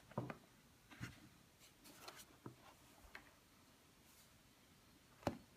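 Gloved hands handling a cardboard iPod box: faint scattered rubs and light taps, with one sharper knock about five seconds in.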